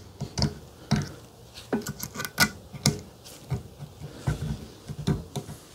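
Irregular light metallic clicks and scrapes of a steel retaining clip being worked into its groove in the bearing bore of an ATV A-arm.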